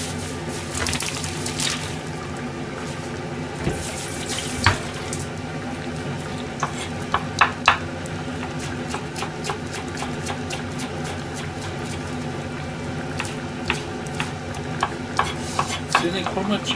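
Kitchen knife chopping shiso leaves on a wooden cutting board: scattered sharp taps of the blade on the wood over a steady background hiss.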